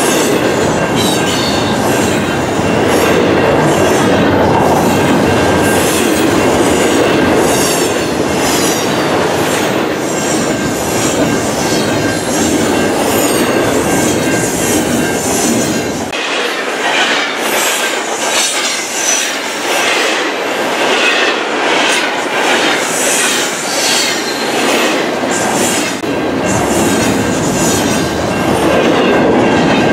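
Steel wheels of double-stack intermodal container cars rolling past at track speed. A steady loud rumble carries a regular clickety-clack as the wheelsets pass, one or two a second. A thin high ringing from the wheels on the rail runs through it all.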